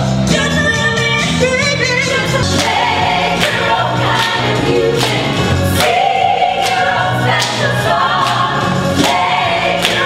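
A 1960s-style pop/soul song performed by a group of women singing together over a band with bass and a steady beat.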